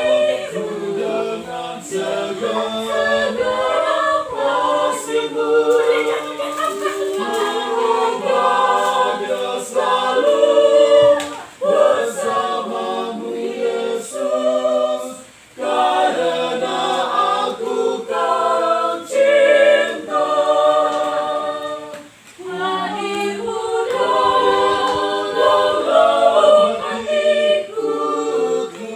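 Small mixed choir of men's and women's voices singing unaccompanied in parts, reading from song sheets, with a few short breaks between phrases.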